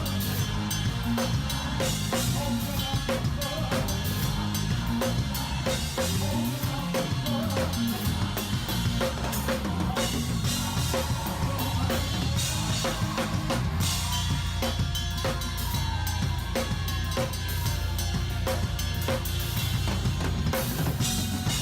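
A drum kit played in a busy, fast groove: rapid snare, kick and cymbal hits packed densely over the band's music.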